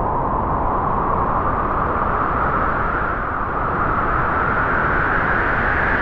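Wind blowing in a strong, steady gust, a rushing hiss whose pitch rises slightly over the few seconds.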